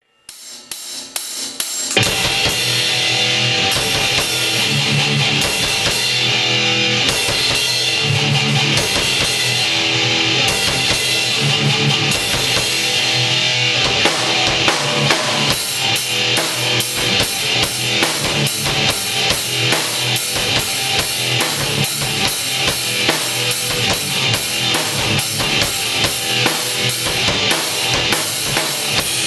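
A band playing live in a small room: a Mapex drum kit and an electric guitar, loud. A few drum hits open it, the full band comes in about two seconds in, and from about halfway the drumming turns to fast, even strokes.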